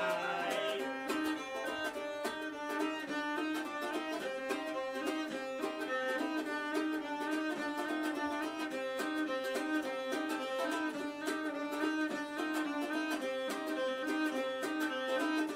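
Live instrumental passage on cello and strummed ukulele: quick, evenly repeated strokes and notes at a steady, driving pace, with the bowed cello carrying the lower line.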